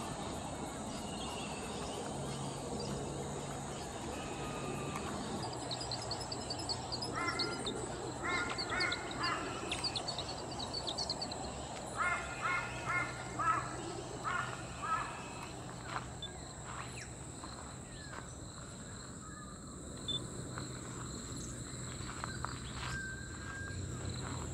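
Variegated fairy-wrens singing high, fast trilling reels, with several bursts of harsher, rapidly repeated calls from another bird partway through.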